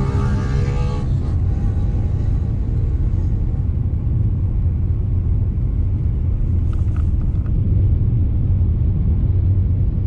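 Steady low rumble of a Volkswagen car's engine and tyres heard from inside the cabin while it drives.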